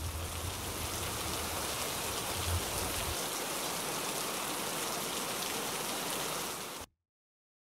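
Steady rain falling, an even hiss with a low hum beneath it for about the first three seconds, cutting off suddenly near the end.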